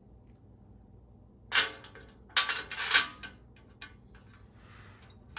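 Metal parts and tools clattering and clinking in a few short bursts, starting about a second and a half in, while rear bumper brackets and bolts are being fitted.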